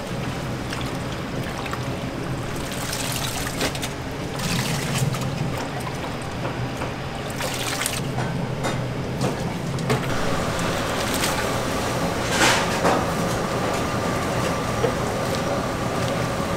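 Water sloshing and trickling as chopped leafy greens are washed by hand in a steel sink and then stirred with a wooden spoon in a pot of water. A steady low kitchen hum runs beneath, and a few sharp knocks stand out.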